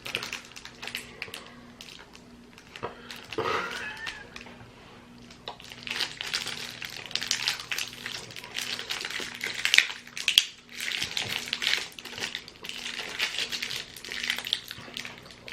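Plastic wrapper of a toffee slab crinkling and crackling as it is handled and struck to break the toffee, with a couple of sharper knocks about ten seconds in.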